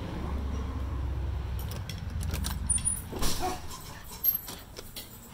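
A low rumble dies away in the first two seconds. Then come a few separate knocks and clicks, the loudest about three and four seconds in, as the front door is shut and locked.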